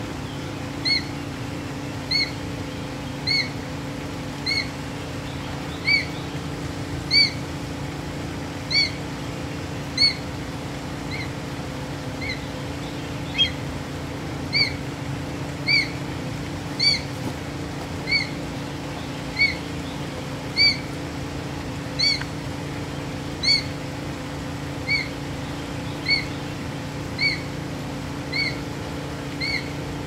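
A hawk calling over and over: a short, high, arched call about every second and a quarter, all through. A steady low hum lies under the calls.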